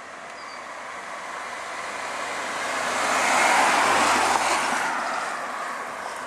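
A Mini towing an Airstream Argosy travel trailer drives past, its engine and tyre noise swelling to a peak about four seconds in as it passes close by, then fading as it moves away.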